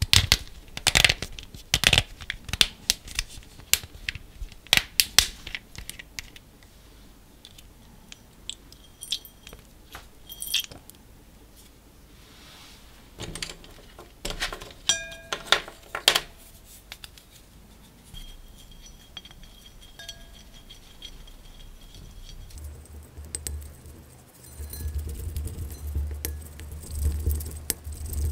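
Hands tear and squeeze open a small plastic packet, a quick flurry of crinkles and clicks, followed by scattered taps and a few short ringing clinks on a glass bowl. Near the end a wooden craft stick stirs and scrapes a pink mixture around the bottom of the glass bowl.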